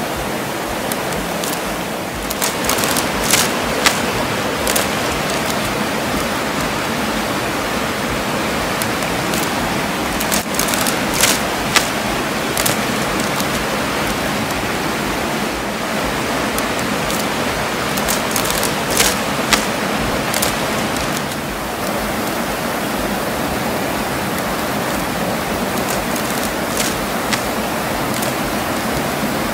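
Fast-flowing stream rushing over rocks: a steady sound of running water with a few brief, sharper splashes.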